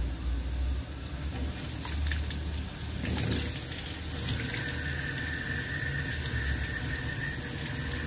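Penberthy steam injector running without feeding the boiler: steam and water rush and hiss out of it while it draws water through a hose from the bucket. The owner later finds its valve to the boiler was left shut. A thin steady whistle joins for a few seconds about halfway through.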